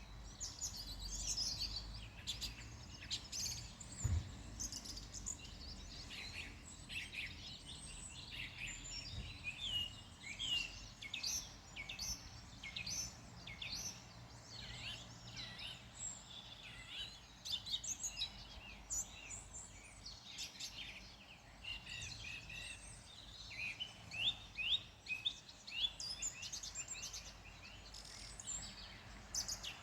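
Several small birds chirping and singing in quick, overlapping calls, over a low steady rumble, with a brief low thump about four seconds in.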